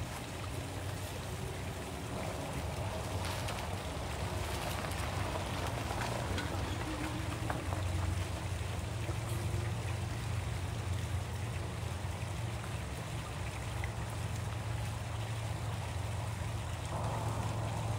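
Golf cart running nearby with a steady low hum.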